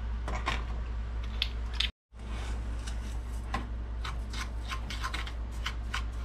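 A metal spoon scraping and clicking against the inside of a stainless steel saucepan, stirring a dry, crumbly mixture in quick, irregular strokes. A steady low hum runs underneath, and the sound cuts out briefly about two seconds in.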